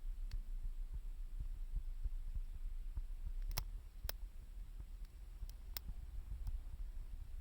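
Wood fire crackling, with several sharp pops about three and a half to six seconds in, over a steady low rumble.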